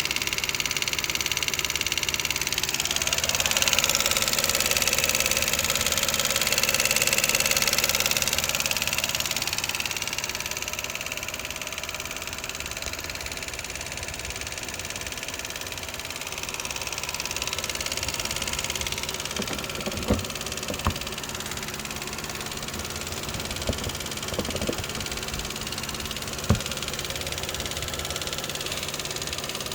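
2011 Lexus IS250C's 2.5-litre V6 idling with a ticking noise, which the owner takes to be normal. The engine sound grows louder for several seconds near the start, and a few sharp clicks come in the second half.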